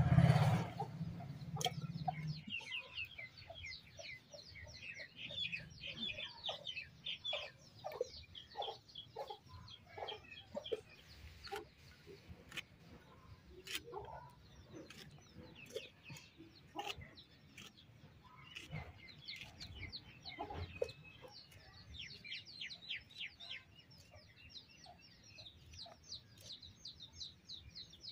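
Chickens clucking and chirping, with many quick chirps, over a series of sharp clicks from tomatoes and okra being sliced against a kitchen blade. A low rumble fills the first couple of seconds.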